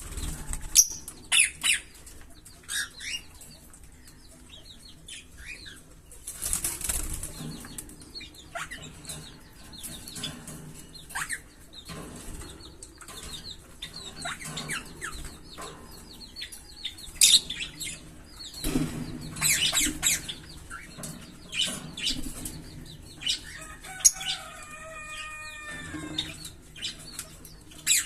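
A pair of green Fischer's lovebirds chirping, with many short, sharp, high chirps in irregular runs. A brief rustling burst comes about a quarter of the way in, and a longer wavering call comes near the end.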